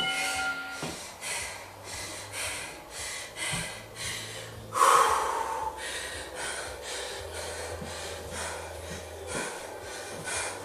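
A woman breathing hard and fast, about two heavy breaths a second, with a louder gasping breath about five seconds in. She is out of breath from an intense cardio interval.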